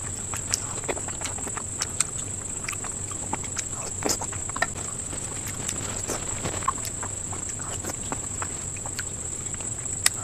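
Close-up eating sounds of sweets being chewed: irregular wet mouth clicks and smacks, a few a second. Under them runs a constant high-pitched whine.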